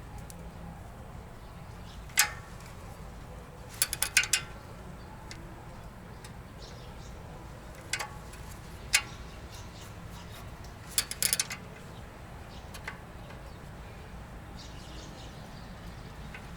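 Sharp clicks and clinks over a low steady hum: a few single clicks and two quick clusters of four or five.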